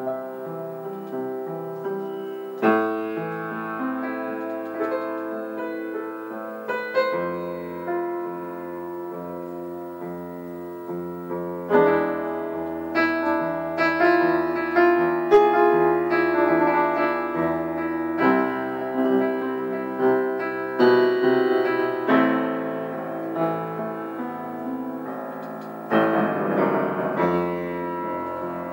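Solo piano music: slow, held chords with single notes struck over them every second or so.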